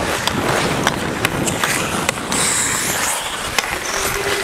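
Hockey skates gliding and carving on rink ice close to the microphone, a steady rushing hiss, with scattered sharp clicks and a brief louder high hiss about two and a half seconds in.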